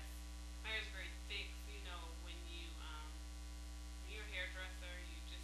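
Steady low electrical mains hum running under a woman's talking, with a few fainter steady tones above it.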